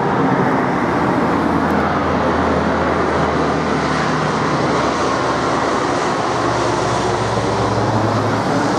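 Low-flying four-engine turboprop transport plane, C-130 Hercules type, passing overhead with a loud, steady propeller drone. Its deep hum grows stronger near the end.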